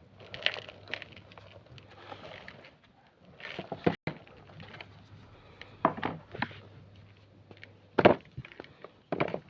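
Homemade grey gym chalk crunching and crumbling in separate sharp crunches, about six of them spaced a second or two apart, the loudest about eight seconds in.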